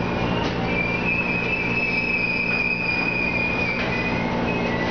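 Seibu Railway electric train creeping up to the buffer stops at the end of the line, braking to a stop. A steady high-pitched squeal runs over a low hum.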